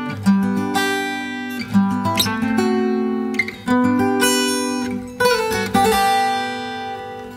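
Acoustic guitar strumming a series of chords, each struck sharply and left to ring out before the next.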